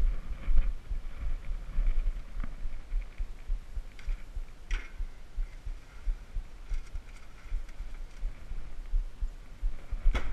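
Low, irregular thumping and rumble of a handheld camera being carried while walking barefoot across a tile floor, with a few faint clicks.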